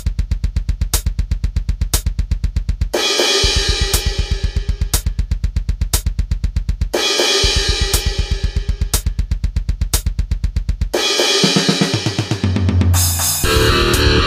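Programmed death metal drums from FL Studio: a rapid, unbroken double-bass kick drum with a cymbal hit about once a second and a couple of longer cymbal washes. Near the end a low bass tone enters, then distorted guitars come in and fill the sound.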